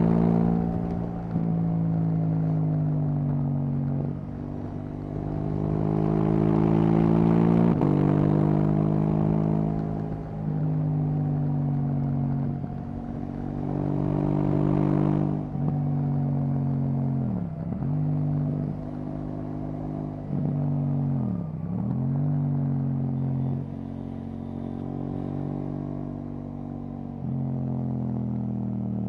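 KTM 790 Duke's parallel-twin engine through an Akrapovic exhaust, ridden on the road: the revs climb in each gear and break off at each gear change, with two sharp drops and recoveries midway and steadier cruising toward the end.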